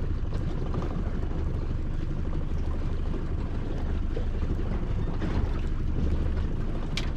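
Steady low rumble of wind and sea around a small drifting fishing boat, with no distinct events standing out.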